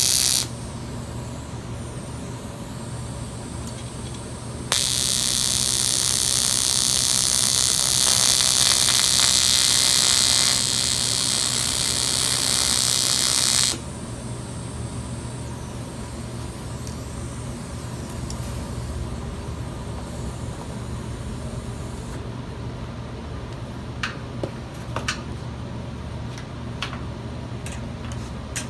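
AC TIG welding arc buzzing and hissing on cast aluminum. One arc cuts off about half a second in. A second, longer arc runs from about five seconds in for about nine seconds, with the heat keyholing and melting through the backside. After that there is a steady low hum with a few faint clicks near the end.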